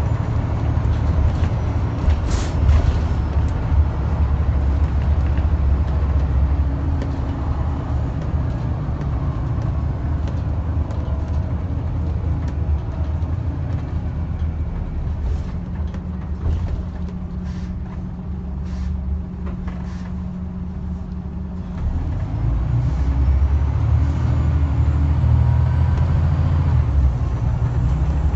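Scania N94UD double-decker bus on the move, heard from inside the passenger saloon: a steady low engine drone with body rattles and clicks. It goes quieter to a steady hum from about 15 to 22 seconds in, then grows louder again as the bus pulls on.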